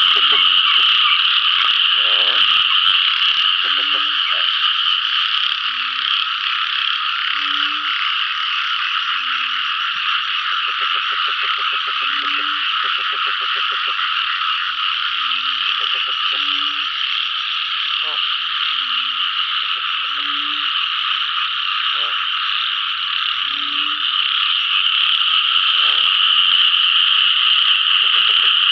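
Night chorus of frogs after rain. Short low calls repeat every second or two, alternating between two pitches, and now and then a rapid rattling call joins in, all over a dense, unbroken high-pitched chorus.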